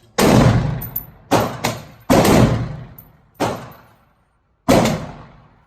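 Six rifle-calibre gunshots fired at an uneven pace, two of them in quick succession about a second and a half in, each sharp crack trailing off in an echo.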